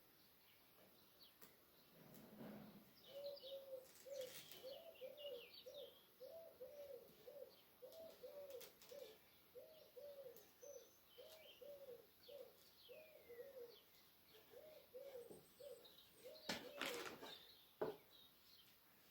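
Faint birdsong: a low cooing call repeated in a fast, even series of about two notes a second, with small birds chirping higher above it. A few sharp clicks are heard, the loudest near the end.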